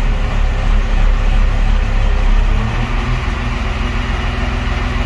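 Diesel engine of a Dafang DCY150 150-ton hydraulic transporter running steadily under the cab, a low hum that swells slightly for the first couple of seconds while the hydraulic lift brings the platform back to level.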